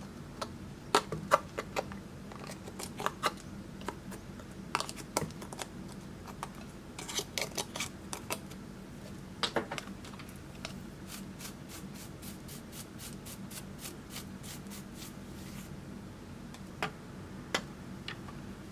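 A small metal tool scraping and picking pressed eyeshadow out of a plastic palette's pans: sharp clicks and taps of metal on plastic with light scraping. A little past the middle comes a quick run of even taps, about four a second.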